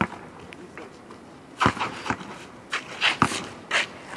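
Basketball being dribbled on an asphalt court: about half a dozen sharp bounces at uneven intervals, most of them in the second half, with shuffling footsteps between them.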